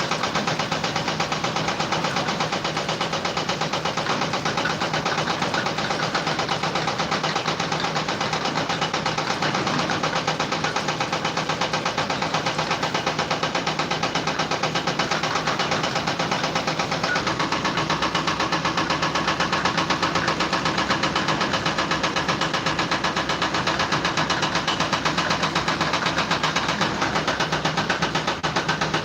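A machine running steadily with a fast, even pulse.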